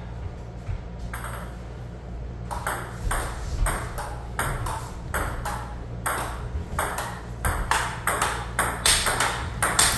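Table tennis rally: the ball clicks sharply off the paddles and bounces on the table top in a steady back-and-forth, about two hits a second.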